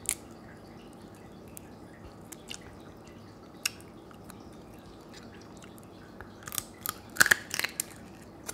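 Close-up eating sounds: faint clicks of fingers picking at a cooked crab piece, then near the end a quick run of sharp crunches and chewing as a piece is bitten.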